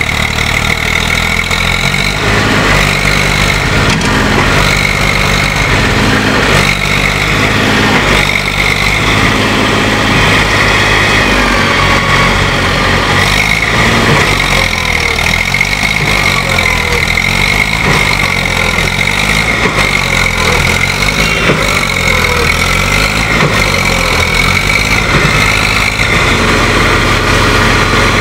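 Diesel engines of a tractor and a JCB backhoe loader running steadily together, rising and falling a little in pitch, as the backhoe's front bucket pushes the tractor's loaded trolley to free it from the mud.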